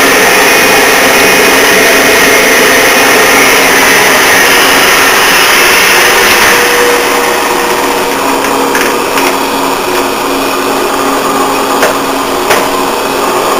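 Old turret lathe running under power: a steady mechanical whirr of the spindle, gearbox and belt drive, turned by a temporary single-phase electric motor that is short of power for it. The level drops a little about halfway through, and a few light clicks come later.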